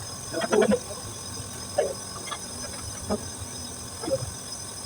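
Scattered knocks and clicks from work on an opened air-conditioning unit, a quick cluster of them about half a second in and single ones after, over a steady high-pitched whine.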